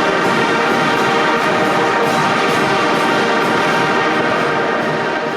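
Oaxacan wind band, brass to the fore, playing a full, steady passage with many sustained notes.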